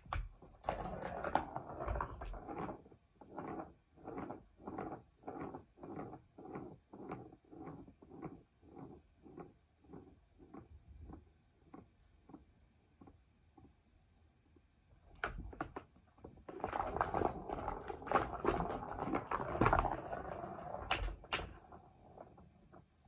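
Ball rolling round a plastic circuit-track cat toy: a burst of rattling as the cat bats it, then a run of even pulses, somewhat more than one a second, that fade away as the ball keeps circling the wavy track. A second bout of rattling starts about fifteen seconds in, with a few sharp clicks near the end.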